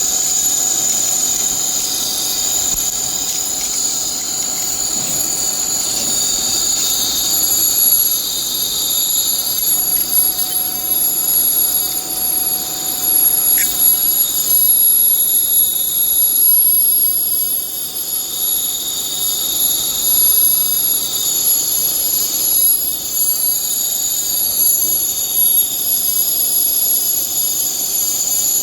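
Industrial machinery running with a steady high-pitched whine over a hiss, its pitch wavering slightly now and then.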